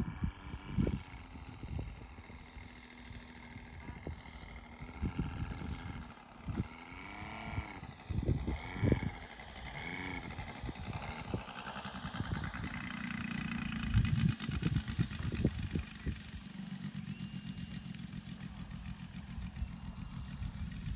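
Radio-controlled Corsair model plane's motor running as it comes in low, its pitch sweeping up and down as it passes close, then running at low throttle as it lands and rolls on the grass. Low gusts of wind buffet the microphone.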